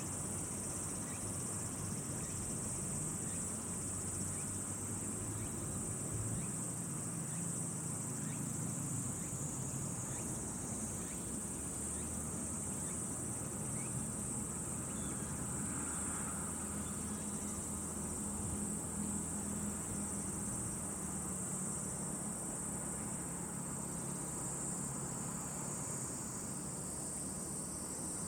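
Steady, unbroken high-pitched chorus of insects in the vegetation, with a faint even low hum underneath.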